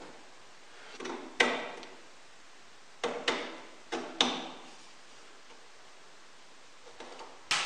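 Plywood plates knocking against each other and the wooden workbench as they are handled and fitted over steel studs: about six sharp wooden knocks, two of them in quick pairs in the middle.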